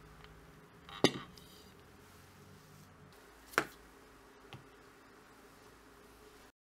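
Crockery being set down on a table: a sharp ceramic clink about a second in, another a couple of seconds later, and a lighter tap as a coffee mug is put down, over faint room tone.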